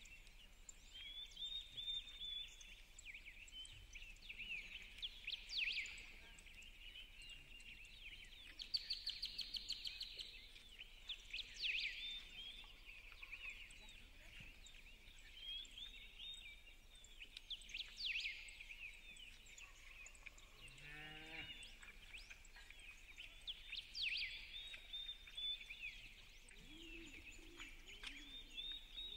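Birdsong: a chorus of small birds chirping and singing, with a rapid trill about nine seconds in and low cooing calls near the end.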